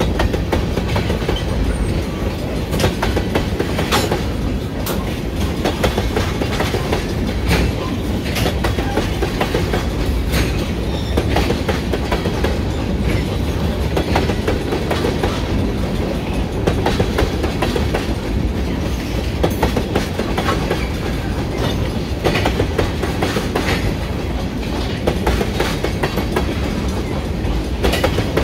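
Freight train tank cars rolling past at close range: a steady low rumble of steel wheels on rail, with repeated irregular clicks and knocks as the wheels cross rail joints.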